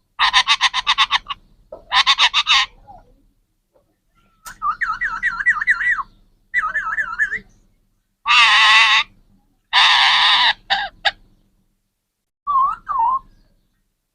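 A parrot calling in a string of separate bursts: rapid pulsed chatters first, then wavering warbles, then two loud harsh squawks about halfway through, and a few short notes near the end.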